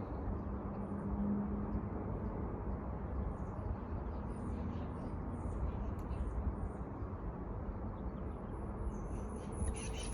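Wild bird calling: scattered short, high chirps, then from about eight seconds in a rapid, high-pitched run of repeated calls that the listeners find strange, a bird "freaking out" as the eclipse dims the light. A steady low outdoor rumble runs underneath.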